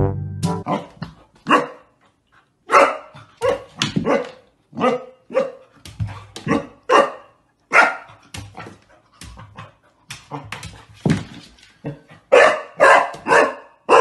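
Golden retriever puppy barking repeatedly at its own reflection in a mirror: short, fairly high barks, irregular and several a second with brief pauses, then a quick run of louder barks near the end.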